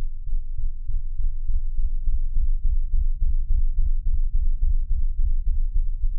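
Cartoon soundtrack slowed down sixteen times into a loud, deep, wavering rumble. It has nothing above the lowest bass.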